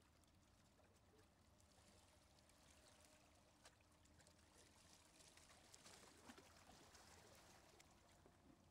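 Near silence: faint sea water lapping among shoreline rocks, with a few faint ticks.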